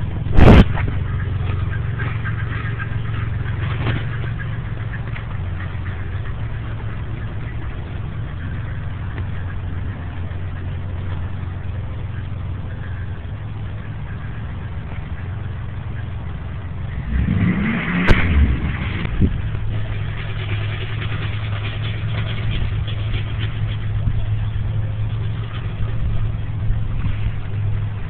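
Vehicle engine running steadily with a low, even hum. There is a sharp knock near the start and a brief louder, rougher stretch about two-thirds of the way through.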